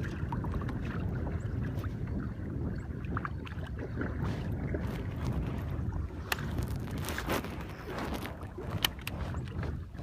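Wind rumbling steadily on the microphone aboard a kayak, with scattered light clicks and knocks, most of them from about six to nine seconds in.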